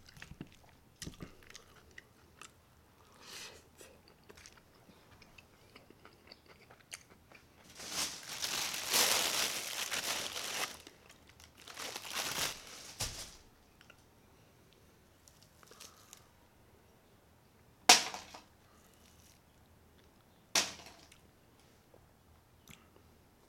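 Close-miked eating sounds: soft chewing and small clicks, with about three seconds of loud rustling and crunching a third of the way in and a shorter burst after it. Later come two sharp, crisp snaps a few seconds apart.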